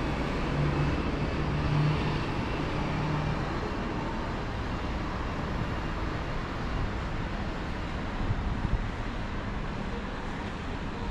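Steady road traffic rumble, with a vehicle engine humming through the first few seconds.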